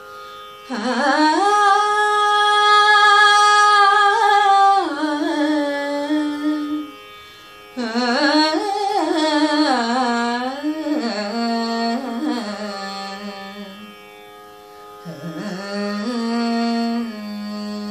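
A woman singing a wordless Carnatic alapana in raga Hamsanadam over a steady drone. She opens on a long held note, then sings winding, ornamented phrases with short pauses between them.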